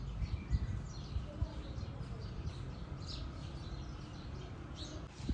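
Birds chirping over and over, over a low rumble of wind on the microphone.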